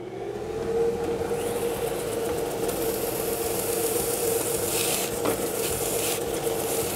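Benchtop belt-and-disc sander with an 80-grit belt: its motor hum rises in pitch over the first second and then runs steady, while a small wooden box is pressed lightly against the belt to take a hair off for a close fit. The box on the belt gives a dry rasp of sanding, heaviest in passes about five seconds in and again near the end.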